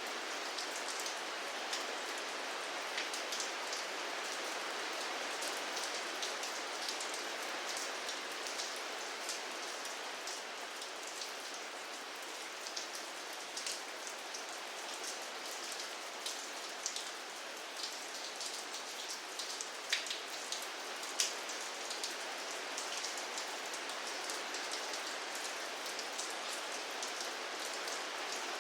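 Steady rain falling, a dense even hiss with many individual drops ticking sharply on a hard surface, a couple of louder drips near the end.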